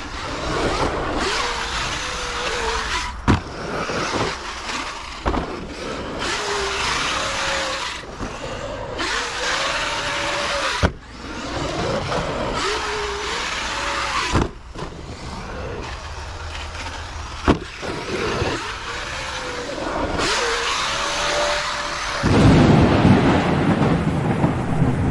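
Arrma Kraton 8S EXB RC car running on dirt, its electric motor whining up and down in pitch in short repeated bursts with abrupt cuts between them. A loud low rumble comes in near the end.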